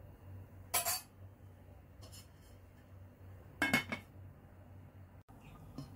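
Aluminium cooking pot and its metal lid clanking: two sharp clinks, about a second in and again near the middle as the lid goes onto the pot, with lighter knocks between and near the end.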